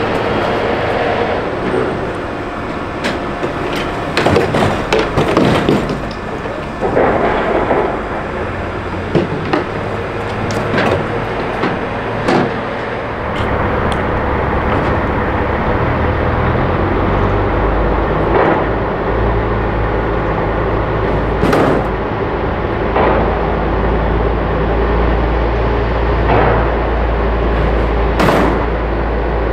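Heavy crawler excavator running, its diesel engine a steady drone, with irregular metallic clanks and knocks, a cluster of them a few seconds in and then single ones every few seconds. A deeper engine rumble comes in about halfway.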